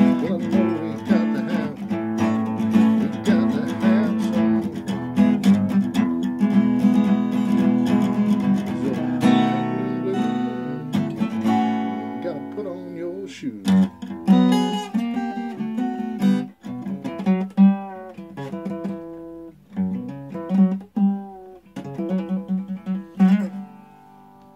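Acoustic guitar playing a blues passage: steady strummed chords for about the first half, then sparser picked notes and chords with gaps between them, trailing off near the end.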